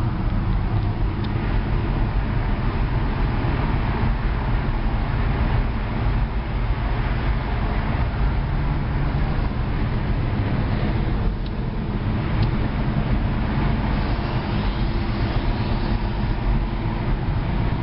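Steady road and engine noise heard inside a car cruising at freeway speed, a constant rumble with tyre and wind hiss.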